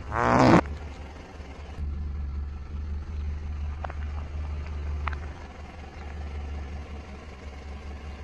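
A whoopee cushion squashed under a car tyre gives a loud blast of about half a second, building and then stopping sharply. The car's engine then runs with a low steady rumble, with two faint clicks about four and five seconds in.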